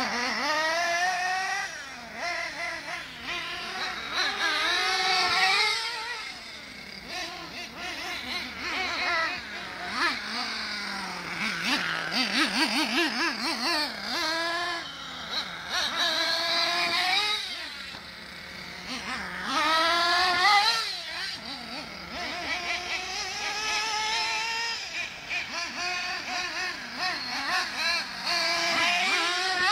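Two nitro-powered HPI Trophy Truggy RC cars racing, their small two-stroke glow engines revving up and down again and again as they accelerate and back off around the track. The high whine keeps rising and falling, at times with both engines heard together.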